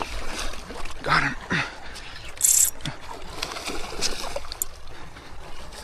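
Hooked barracuda splashing at the water's surface as it is reeled in, with one sharp splash about two and a half seconds in.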